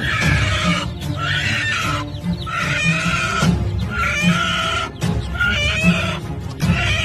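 Music with a steady beat, mixed with repeated chicken squawking, about one call a second.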